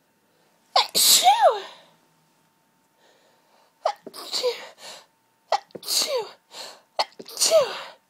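A run of about four loud, explosive sneezes in quick succession, each with a falling vocal note, the first about a second in and the rest packed into the second half. It is a hayfever sneezing fit.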